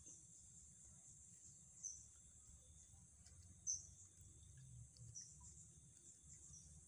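Faint, steady high-pitched insect drone, like crickets or cicadas, with a few short chirps breaking in about every second and a half.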